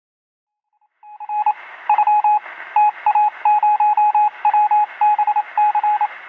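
Electronic beeps of one pitch in quick runs of short and longer pulses over a steady hiss of static, starting about a second in: a logo sound effect.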